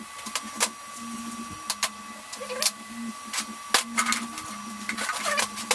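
Stainless steel tube pieces of a motorcycle center stand clinking and knocking against each other and the steel workbench as they are handled and fitted together: a string of separate sharp clicks. A steady faint whine and a lower hum that comes and goes run underneath.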